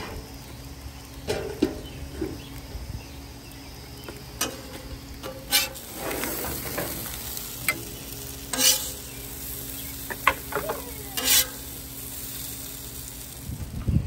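Diced potatoes sizzling on a hot steel Blackstone flat-top griddle, with a metal spatula scraping across the steel several times as the home fries are scooped up.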